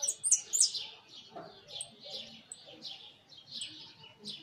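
Jilguero amarillo, a yellow finch, calling: a quick run of sharp, high, falling notes in the first second, the loudest part, then a steady series of chirps about two a second.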